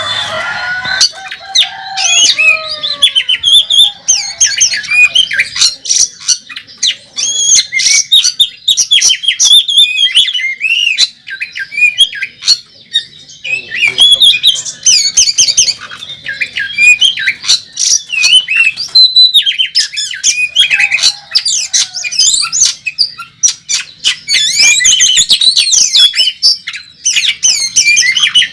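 Oriental magpie-robin (kacer) singing a loud, rapid, unbroken song of varied whistles, pitch glides and harsh clicking notes, packed with phrases mimicked from other birds, in the aggressive 'fighting' style of a competition bird.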